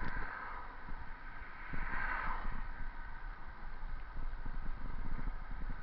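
Bicycle riding noise: tyres rolling over pavement with a steady low rumble, and wind on a handlebar-mounted action camera's microphone.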